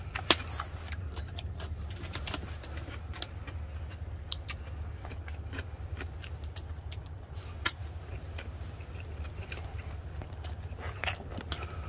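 A man chewing a mouthful of grilled beef, with scattered wet clicks and lip smacks from his mouth. Under them runs a steady low hum.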